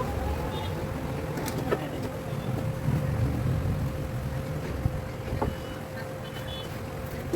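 Window air conditioner running: a steady low hum with a constant whine-like tone above it and a few faint clicks.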